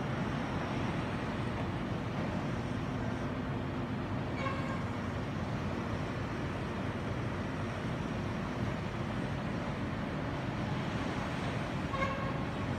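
Construction-site ambience: a steady rumble of engines and machinery, with two short pitched tones, one about four seconds in and one near the end.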